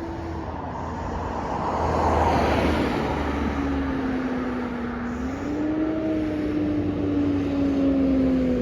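ADL Enviro400 double-decker bus running, with a deep engine rumble under a vacuum-cleaner-like whine, the 'hoover' noise this bus is known for, which drifts up and down in pitch. A rush of noise swells about two seconds in and then eases off.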